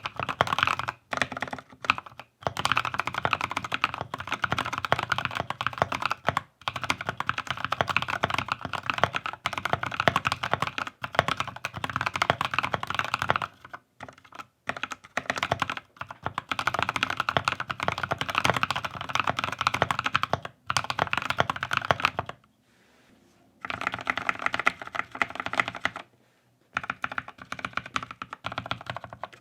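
Fast typing on a Keychron K6 mechanical keyboard with NovelKey Cream linear switches: a dense run of rapid keystroke clacks, broken by brief pauses, the longest about a second, some 22 seconds in.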